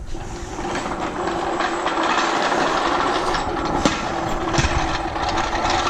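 A heavy floor jack being rolled into place, with a steady rolling rumble and rattle and scattered clicks and knocks.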